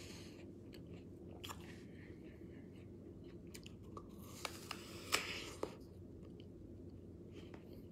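A crisp red apple bitten into and chewed close to the microphone: sharp crunches, loudest in a cluster a little past halfway, with quieter chewing between.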